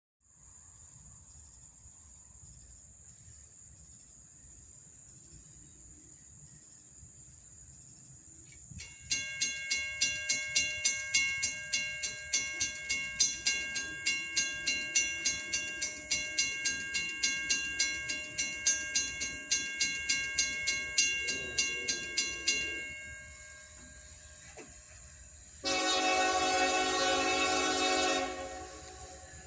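A railroad bell ringing evenly, about two strikes a second, starts about nine seconds in and stops after some fourteen seconds. A few seconds later the Norfolk Southern locomotive's air horn sounds one chorded blast of about two and a half seconds.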